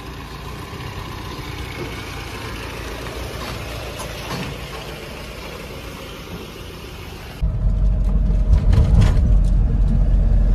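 Mahindra Bolero pickup's diesel engine idling steadily. About seven seconds in, it jumps to a much louder, deep steady rumble of the engine and tyres heard from inside the cab while driving.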